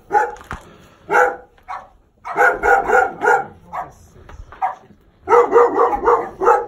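Dog barking in quick runs of short barks, several a second, with the longest runs in the second half.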